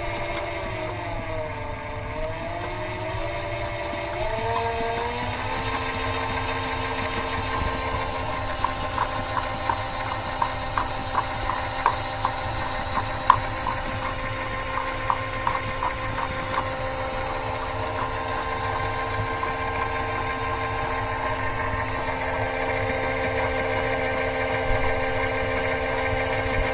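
7x14 mini lathe running with its add-on piston oil pump: a steady machine whine whose pitch falls and rises again over the first few seconds, then holds steady. A run of light, regular ticks, about two or three a second, comes through in the middle.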